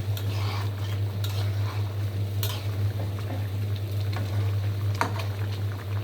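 Kitchen cooking sounds: a utensil stirring and scraping in a pan, with a few sharp clinks, over a steady low hum.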